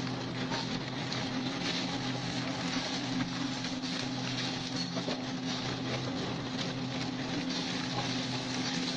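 Wood shredder running with a steady hum while its cutters chew through a hopper-load of branches, with a dense, continuous crackling and snapping of wood.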